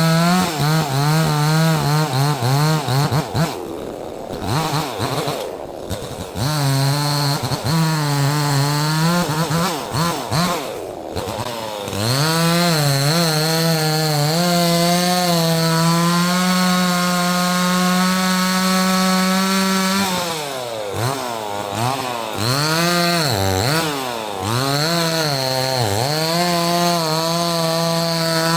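Neotec 68cc two-stroke chainsaw cutting wood. The throttle is blipped up and down repeatedly in the first half, then held at high revs for several seconds at a time, dropping back briefly a few times.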